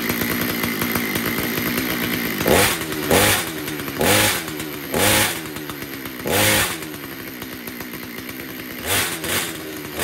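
Stihl 025 two-stroke chainsaw engine idling with the bar and chain off, its throttle blipped about six times so that the pitch sweeps up and falls back each time. Each rev makes the centrifugal clutch expand and spin, showing it works once the chain brake is released.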